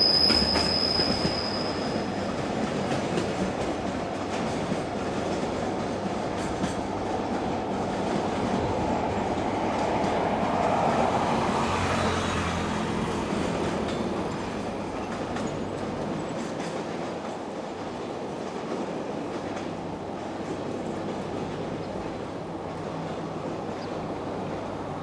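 Freight train rolling past, its wheels running over the rails in a steady rumble. A high, thin wheel squeal at the start dies away about two seconds in, and the rumble swells a little around ten to twelve seconds in before easing off.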